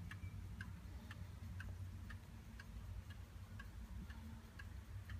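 Warmink Zaanse weight-driven wall clock ticking steadily, about two ticks a second, over a low steady hum.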